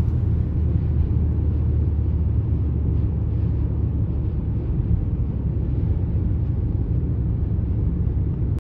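Car driving at motorway speed: a steady low road and tyre rumble that stops abruptly near the end.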